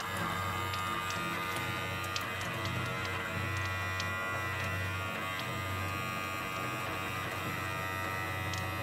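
Small battery-powered electric faucet pump running with a steady buzzing hum. It is pulling water through a Sawyer Mini filter on a long silicone tube, so only a thin stream trickles into a stainless steel sink.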